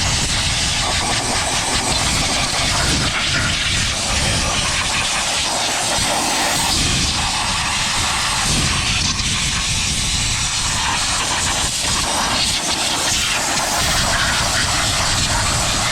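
Compressed-air blow gun blasting in a loud, continuous hiss that swells and eases, blowing debris off the top of an engine around the intake so it doesn't fall into the cylinder-head ports.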